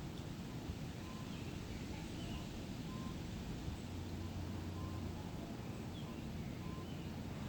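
Forest ambience: a steady low rumble under faint, distant bird calls, a short high note repeating about once a second with a few higher chirps.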